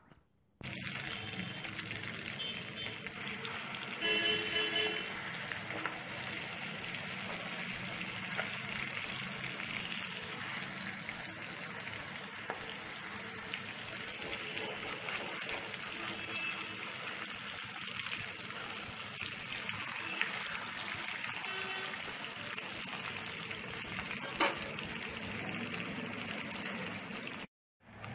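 Marinated fish steaks sizzling steadily as they shallow-fry in hot coconut oil in a pan, a constant crackling hiss. There is a single sharp tap about three quarters of the way through, and the sound cuts out briefly near the end.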